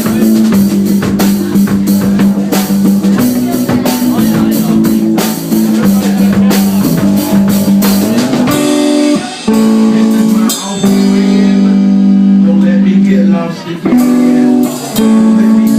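Live band playing an instrumental break: guitar over a drum-kit beat. About halfway through, the drums drop out and the guitar is left holding long sustained notes.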